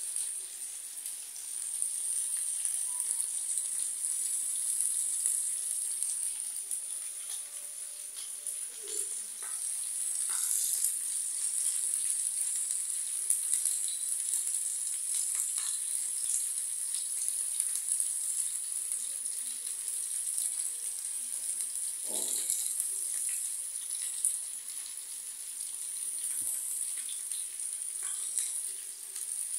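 Beef steaks frying in a flat black griddle pan: a steady high sizzle with scattered crackles and pops from the fat.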